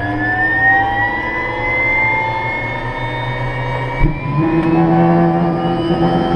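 Helicopter turbine engine spooling up: a whine rising in pitch and levelling off. About four seconds in there is a short knock, and the sound settles into a steadier, lower running tone.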